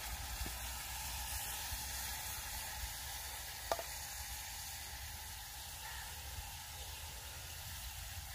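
Onion-tomato masala sizzling steadily in a hot metal pot as yogurt is poured into it from a clay bowl, with one sharp knock a little before halfway.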